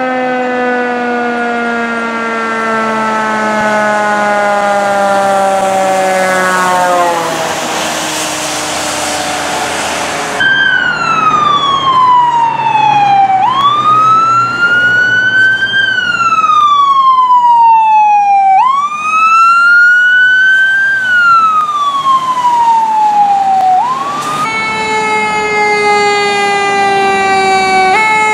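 Emergency vehicle sirens, in three pieces. First a low siren tone sinks slowly, then drops sharply in pitch as the vehicle goes past, followed by tyre hiss on a wet road. Then a wail siren rises and falls about every five seconds, and near the end a fire engine's siren holds one tone that falls slowly in pitch.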